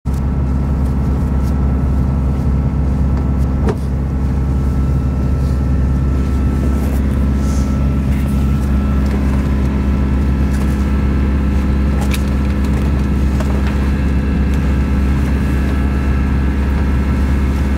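A sailing yacht's engine runs steadily while motoring, a deep continuous hum, with a couple of faint knocks about 4 and 12 seconds in.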